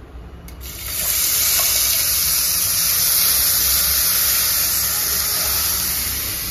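Chopped onions sizzling loudly as they hit hot oil with spluttering mustard seeds in a kadai; the hiss starts suddenly about half a second in and eases slightly near the end.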